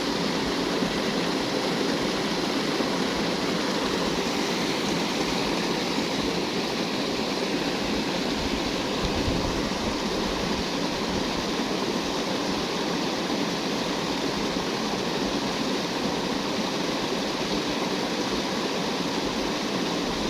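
Steady rush of flowing water, unbroken and even throughout.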